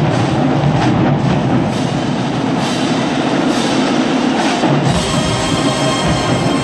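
College marching band playing, with drums prominent. The sound fills out with more low notes about five seconds in.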